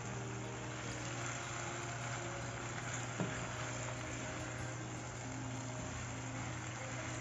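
Pork spareribs, baby kaisoi and bell peppers sizzling steadily in a frying pan as they are stirred with a spatula, with a single knock about three seconds in.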